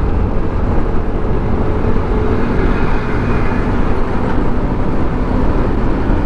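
Steady running noise of a TVS scooter being ridden at highway speed: engine, road and rushing wind heard through the rider's camera microphone.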